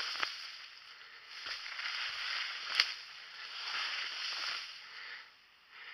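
Bracken ferns and brush swishing and rustling against a person wading through them on foot, in uneven swells, with a sharp snap nearly three seconds in.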